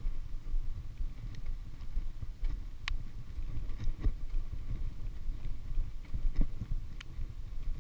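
Wind buffeting the microphone and road rumble from a loaded touring bicycle riding downhill, with a few sharp clicks scattered through, the loudest about three seconds in.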